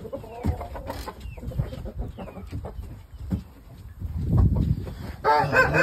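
Chickens clucking in their pens, with scattered clicks and knocks, and a louder, longer call near the end.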